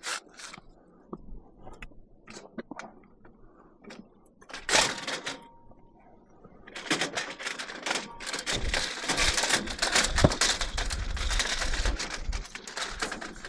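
Scrap metal being handled on a loaded vehicle: scattered knocks, a short clatter about five seconds in, then rapid metallic clicking and rattling from about seven seconds in.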